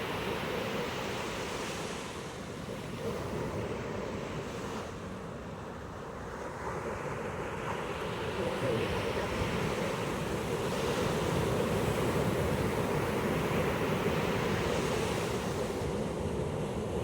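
Pacific Ocean surf breaking on a beach: a steady wash of waves that eases a little, then swells again as a wave comes in.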